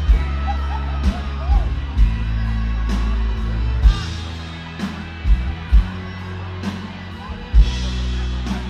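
A live band playing amplified music over the stage PA, with sustained bass notes and strong low beats about once a second.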